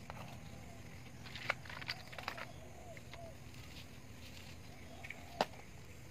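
A few faint clicks and rustles as a hand picks through dry twigs and litter on the ground, with faint bird calls between them.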